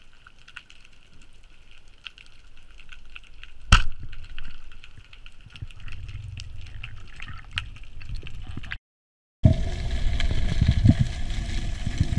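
Underwater ambience heard through an action camera's housing: a faint hiss with a steady high whine, broken nearly four seconds in by a single loud, sharp crack. After a brief cut, louder low rumbling of water moving past the housing.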